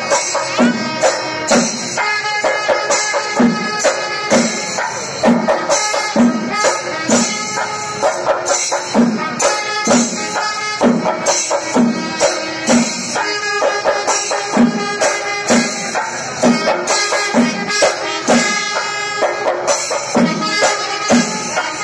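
Kerala temple-festival procession music: drums struck in a steady beat, with clashing cymbals and held tones from wind instruments.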